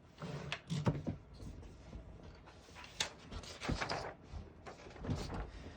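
Scattered clicks, knocks and rustling from a 1918 Corona Folding No. 3 typewriter being handled while it is set up with paper.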